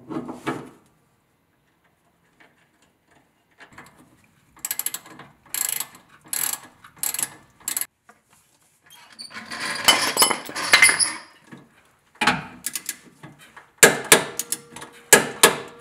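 Socket ratchet clicking in repeated bursts of short strokes as the nut on the drag link tie rod end's ball stud is run down and tightened at the pitman arm.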